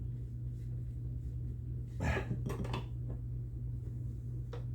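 A wrench clinking against a nut and steel bracket in a brief metallic clatter about two seconds in, with a faint click near the end, over a steady low hum.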